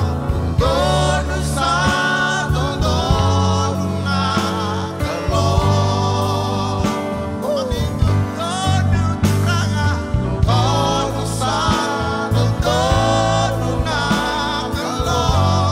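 Live gospel worship song: a male voice sings the melody with vibrato over a Roland RD-700 stage piano, bass guitar and a drum kit keeping a steady beat.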